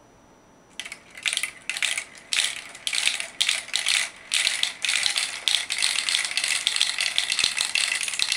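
Marbles rolling and clattering down the clear plastic tubes and chutes of a Quercetti transparent marble run: a rapid, continuous rattle of small clicks that starts about a second in.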